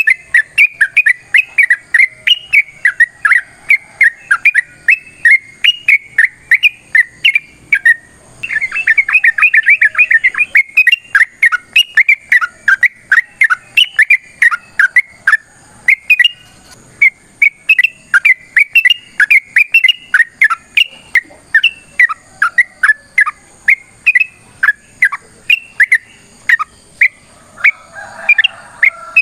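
Yellow-vented bulbul (trucukan) singing a long, fast run of short, sharp chattering notes, several a second, with only a brief pause about eight seconds in.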